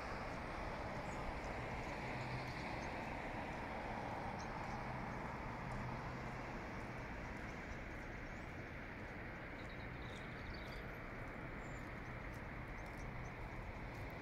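Steady outdoor city ambience: the even hum of distant traffic, with a few faint high chirps past the middle.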